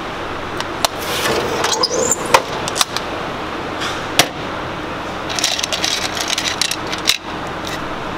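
Steel parts-cabinet drawer pulled open with scraping and clanks, then small crimp connectors rattling and clicking as fingers sort through a compartment for butt connectors.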